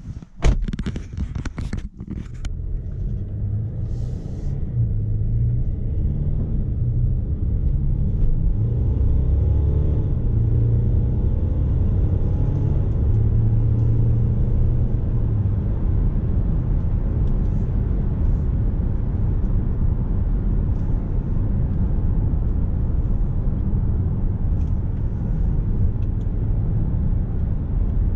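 Cabin sound of a Mercedes GLC 250 d, a four-cylinder diesel SUV, driving on a road: a steady low rumble of engine and tyres, its engine note climbing for several seconds early on. It opens with a few sharp knocks in the first two seconds.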